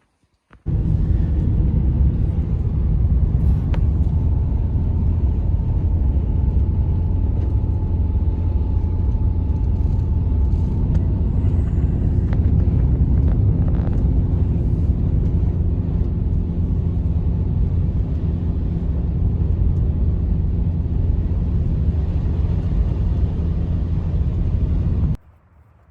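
Strong wind buffeting the microphone: a loud, steady low rumble that starts abruptly and cuts off abruptly near the end.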